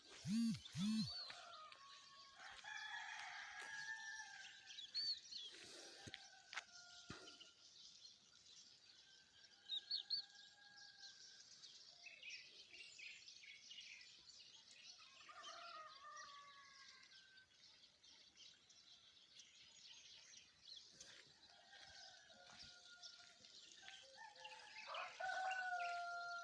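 Free-range country rooster crowing several times, the longest crow near the end, with small birds chirping around it.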